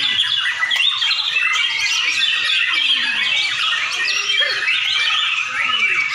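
Many caged white-rumped shamas (murai batu) singing at once in a dense, loud chorus of overlapping whistles, trills and chirps that never pauses.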